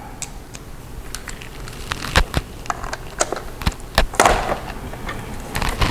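Plastic bottom cover of a Dell Latitude E5450 laptop being popped off its clips: a series of sharp clicks and snaps, with a short scrape about four seconds in.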